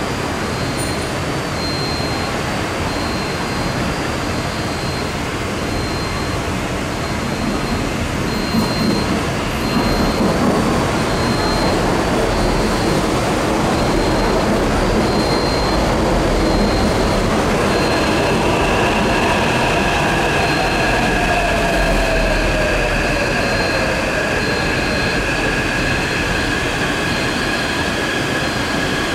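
Taipei Metro electric train arriving at the platform: its running noise grows louder as it pulls in. It then settles into a steady electric whine, with one tone falling in pitch as the train brakes to a stop.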